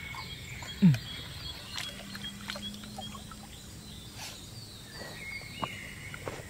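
Outdoor riverside background of birds and insects chirping, with a few light knocks. About a second in comes one short, loud sound falling in pitch.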